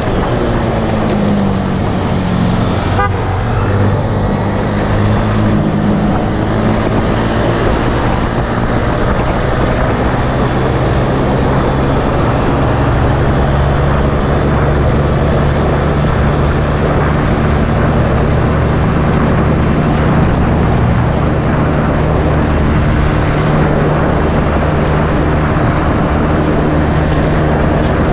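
Honda Scoopy 110's single-cylinder four-stroke engine running under way, its note dropping over the first few seconds and then holding steady at cruising speed, over a constant rush of wind and road noise.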